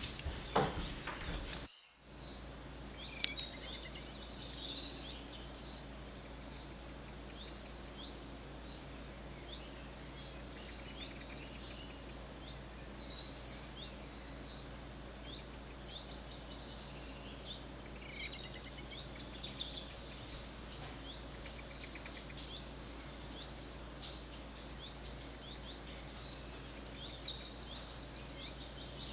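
Outdoor ambience: a steady high insect drone, with short bird chirps now and then and a livelier bout of calls near the end. The sound cuts out for a moment about two seconds in.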